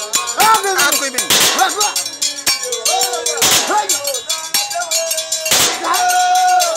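Dance music for a Mende masked dancer: voices singing with swooping, wavering pitch over percussion. A loud noisy stroke comes about every two seconds, with lighter clicks between.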